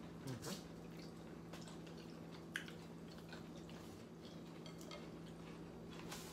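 Quiet mealtime sounds of noodle soup being slurped and chewed, with a few soft clicks of chopsticks and spoons against bowls, over a steady low hum.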